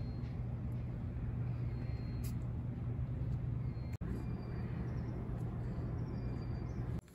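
Steady low-pitched hum of outdoor background noise, with momentary drop-outs about four seconds in and just before the end.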